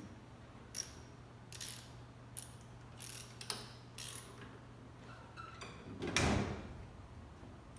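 Scattered metallic clicks and clinks of hand tools and engine parts being handled, with one louder clatter about six seconds in.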